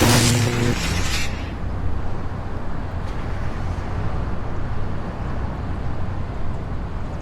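A loud, noisy blast with a pitched tone under it cuts off about a second in, followed by a steady low rumble of heavy machinery running.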